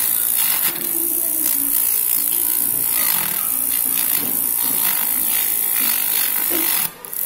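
Homemade drill's small motor running, its needle bit grinding into wood, steady and continuous. It cuts out briefly near the end.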